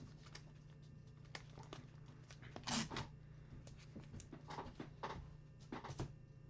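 Faint handling noises over a low steady hum: short rustles and clicks, the loudest a brief rustle about three seconds in.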